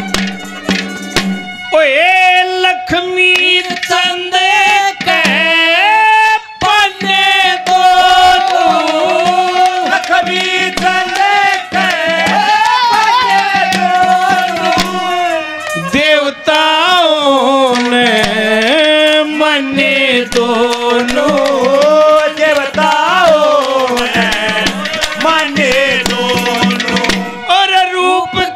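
Live Haryanvi ragni folk music: hand drums keep a rhythm under a melody line that slides and bends in pitch.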